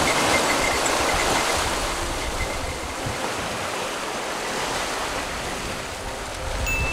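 Sea water rushing and splashing past the hulls of a sailing catamaran under way, a steady wash that eases slightly after the first couple of seconds.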